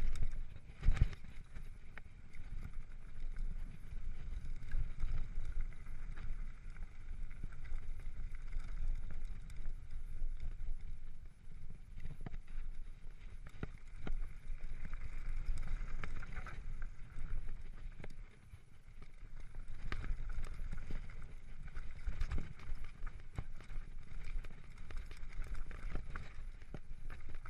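Mountain bike rattling and clattering down a rocky gravel trail, with wind rumbling on the microphone and a run of sharp knocks from hits on the rough ground, the loudest about a second in.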